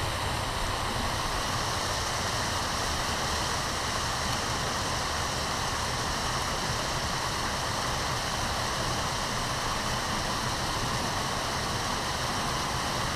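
Steady rush of river water running over rocks, an even hiss with no breaks.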